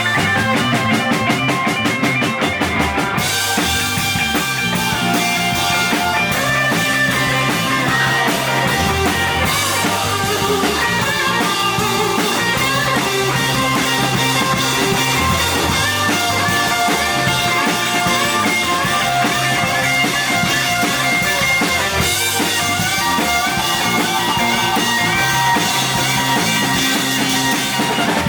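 Live rock band playing: drum kit and guitar over a steady beat.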